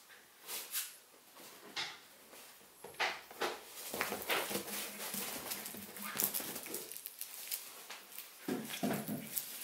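Toy terrier puppy pouncing on and tussling with a fabric ring toy on a sofa: paws scrabbling on the upholstery and the toy's cloth rustling. Scattered light scuffs at first, turning into busier, continuous scuffling from about four seconds in.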